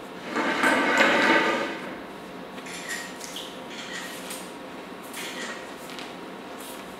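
A bare hand sliding and rubbing across paper while painting with ink: a louder swish of skin on paper lasting over a second, then several short, fainter scrapes with little squeaks.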